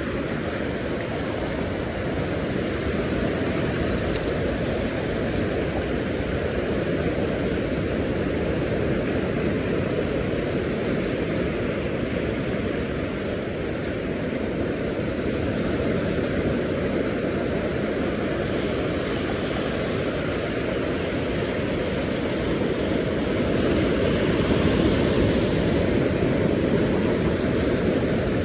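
Steady low rumble of wind and surf at the beach, swelling slightly near the end.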